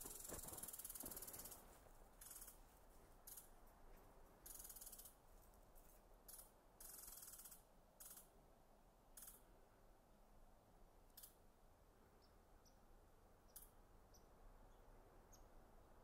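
Faint crunching footsteps on the forest floor, a louder stretch at first, then a handful of spaced single steps that stop about two-thirds of the way through. A few tiny, high ticks follow near the end.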